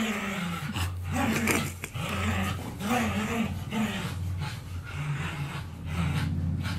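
Dog growling and panting during rough tug-of-war play: wavering low growls that rise and fall, over a steady low rumble.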